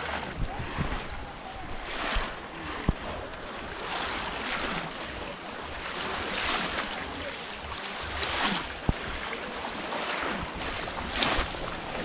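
Water splashing and sloshing in shallow water as many people wade and plunge bamboo polo fish traps down into it, with a louder wash every second or two.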